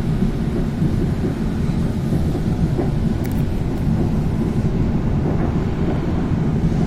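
A train running with a steady low rumble.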